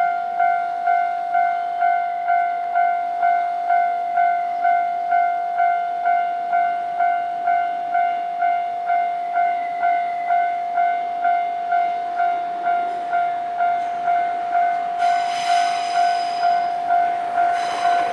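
Japanese railway level-crossing alarm ringing, a steady electronic ding pulsing about twice a second. About three seconds before the end, the noise of a train joins in, with short bursts of high-pitched sound.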